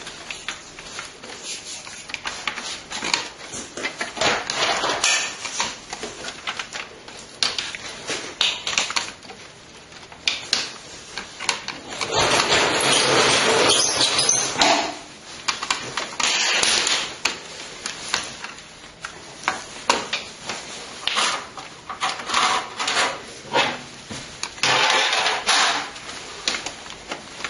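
Clicks, knocks and rattling of hardware being worked loose by hand inside a desktop PC case, with a longer scraping stretch about halfway through.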